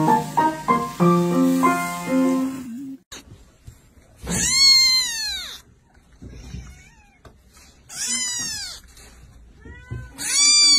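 Piano music that stops about three seconds in, then a kitten meowing three times, a few seconds apart. Each meow is loud and about a second long, rising and then falling in pitch.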